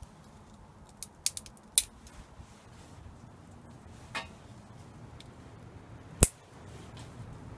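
Small wood fire crackling in a perforated metal can stove, giving a few sharp snaps, the loudest about two seconds in and again about six seconds in.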